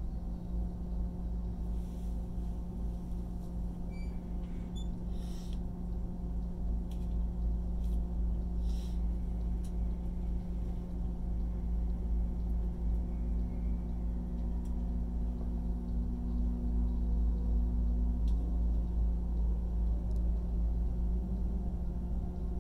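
Steady low rumble and hum inside an ICE high-speed train standing at a platform, with several steady tones from its onboard equipment and an extra tone that comes in for a few seconds mid-way. Near the end the train begins to pull away and the hum steps slightly up in pitch.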